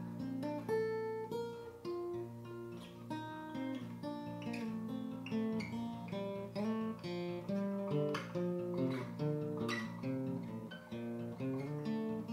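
Steel-string acoustic guitar fingerpicked with thumb and index finger in an open tuning (D, B♭, F, B♭, F, B♭, low to high), playing a continuous, quick run of ringing notes over a repeating bass.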